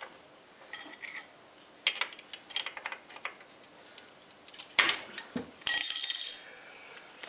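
Steel bicycle bottom-bracket parts and tools clinking and tapping as they are handled, with a sharp knock a little before five seconds in and then a loud ringing metallic clang lasting under a second.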